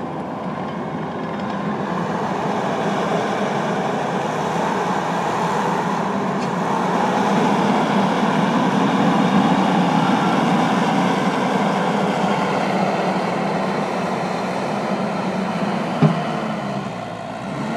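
Gehl CTL70 compact track loader with its 81-horsepower turbo diesel running as the machine is operated, a steady mechanical rumble that grows louder in the middle. A single sharp knock comes near the end.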